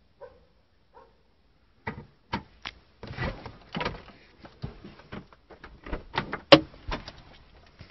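Camera handling noise inside a car: a run of irregular knocks and rubbing thumps as the phone is moved about, the loudest about six and a half seconds in. It is preceded by two short faint pitched sounds in the first second.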